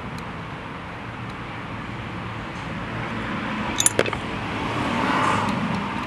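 A road vehicle passing, its noise swelling about five seconds in and then easing, with a couple of small metallic clinks of screws being handled just before that.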